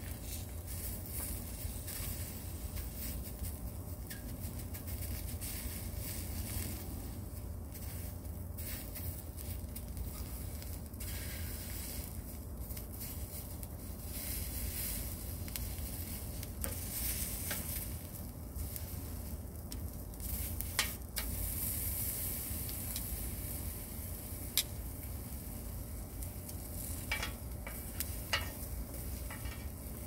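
Sausages sizzling steadily on a slotted metal broiler pan over hot wood coals, with a few sharp clicks in the second half.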